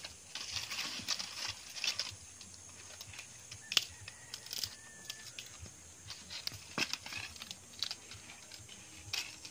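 Dry sticks and cord being handled, giving irregular light rustling and crackling with scattered sharp clicks, the sharpest a little under four seconds in.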